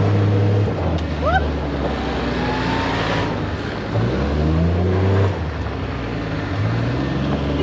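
Side-by-side UTV engine running as it drives along a dirt road, its low drone dropping about two-thirds of a second in, rising again about four seconds in, easing off near five seconds and picking up once more near the end, as the throttle comes and goes. Wind and road noise run under it.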